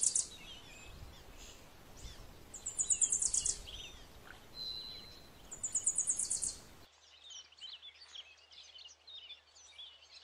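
Birds chirping in woodland, with three bursts of a rapid, high-pitched trill about three seconds apart as the loudest sounds. After about seven seconds only scattered chirps and a faint low hum remain.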